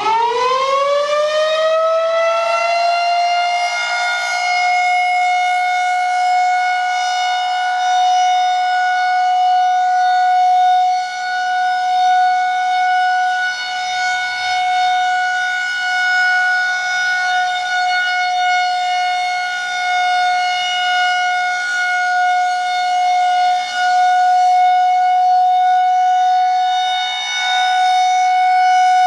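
Federal Signal 2001-130 rotating outdoor warning siren sounding its weekly test on the Full Alert steady signal. It finishes winding up, with the pitch climbing fast over the first couple of seconds, then holds one loud steady tone that swells and dips slightly in loudness.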